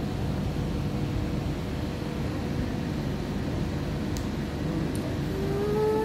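A steady low mechanical hum and whir with a faint steady tone in it. Near the end a drawn-out pitched call sets in over it, held and then bending downward.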